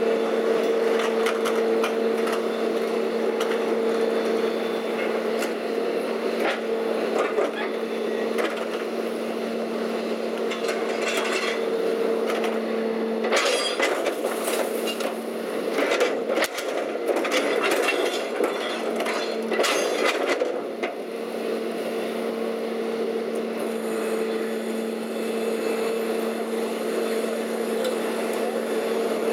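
Leach 2R-II rear-load garbage truck running with a steady hum while a steel half-yard container of demolition waste is tipped into its hopper. About halfway through, debris clatters and crashes into the hopper for several seconds.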